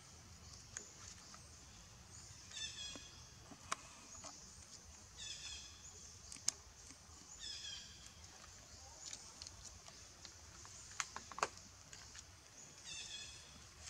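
A high, short falling animal call with overtones, repeated four times a few seconds apart, over faint outdoor background, with a few sharp clicks in between.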